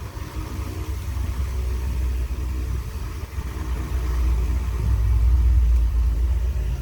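A steady low rumble that swells louder about four seconds in, then eases slightly near the end.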